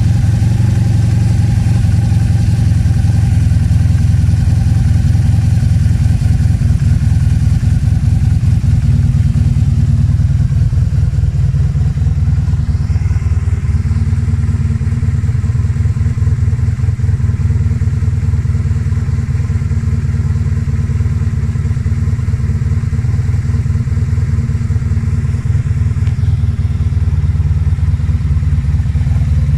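1987 Honda VF1000F2's V4 engine idling steadily while it warms up after a cold start.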